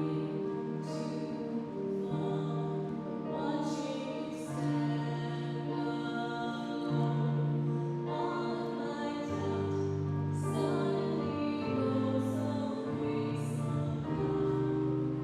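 Slow music with long held notes and singing voices, the chords changing every second or two.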